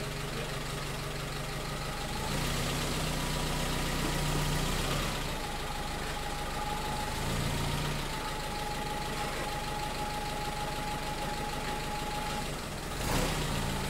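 Willys flatfender Jeep engine running with its newly replaced clutch. The engine note steps up about two seconds in and shifts a couple more times, under a thin steady whine. There is a brief noise burst near the end.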